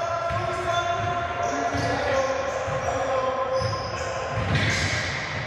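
Basketball bouncing on an indoor gym court during a game, with repeated low thuds under many high squeaky tones from the play.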